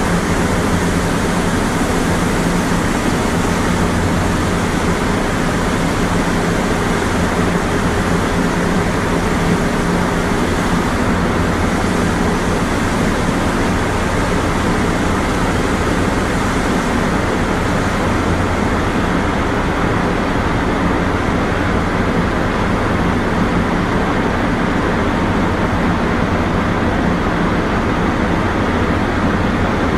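Steady machinery noise from a running horizontal vacuum belt filter installation: a constant, even din with a steady low hum underneath.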